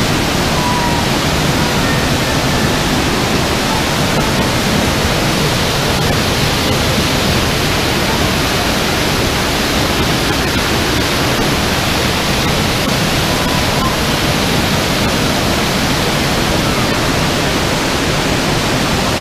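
Waterfall pouring close by into its plunge pool in a rock gorge: a loud, steady rush of falling water.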